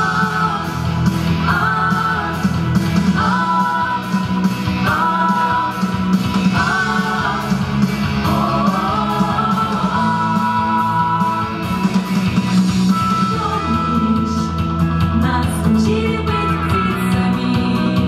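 A mixed vocal ensemble of men and women sings into microphones over loud amplified instrumental accompaniment. Short sung phrases repeat about every two seconds at first, then give way to longer held notes about eight seconds in.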